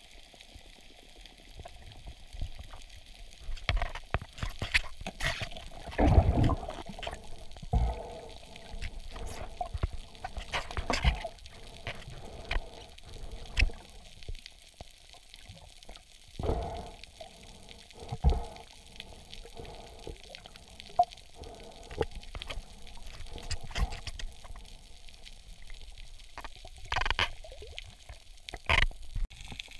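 Underwater water noise picked up by a diver's camera: irregular gurgles and swishes of moving water, broken by dull thumps, the loudest about 6 and 16 seconds in.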